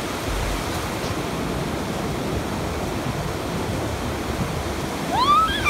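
Ocean surf washing and breaking steadily. Near the end a child's high voice cries out, rising and falling in pitch.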